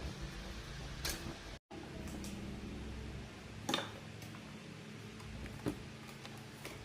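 Scattered sharp clicks and light taps, four or five in all, over a low steady hum.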